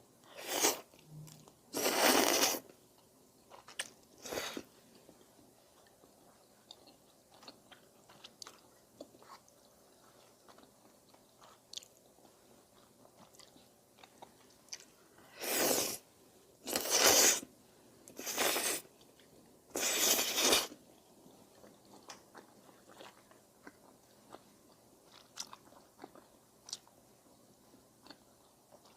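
Close-miked eating of udon with rice cakes: soft chewing and mouth clicks, broken by seven loud, short noisy bursts, three in the first five seconds and four close together in the middle.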